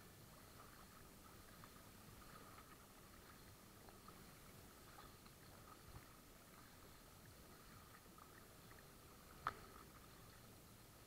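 Faint sound of a kayak moving through choppy lake water, with small scattered splashes and ticks, and one sharp knock about nine and a half seconds in.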